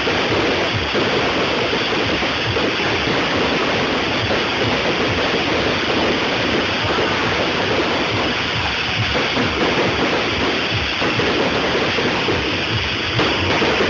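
Fireworks going off close overhead in a dense, continuous crackle of rapid pops, steady in loudness with no break.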